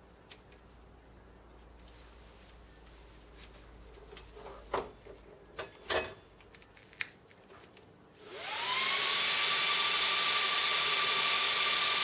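A few clicks and knocks as the front panel is handled and the power button pressed, then, about eight seconds in, the 1U server's bank of small cooling fans spins up with a rising whine and runs steady and fairly loud. The temperature-controlled fans run at full speed at power-on, before the BIOS slows them down.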